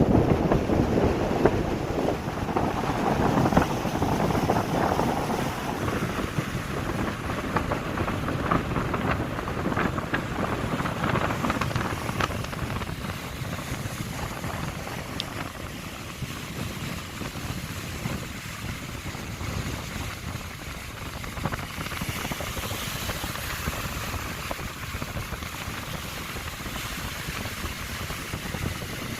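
Wind buffeting a phone's microphone over the wash of surf, a crackly rumble that is strongest for the first few seconds and then eases.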